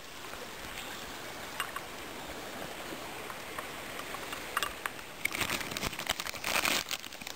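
River flowing: a steady rush of water. From about five seconds in, a plastic zip-lock bag crinkles loudly as it is handled.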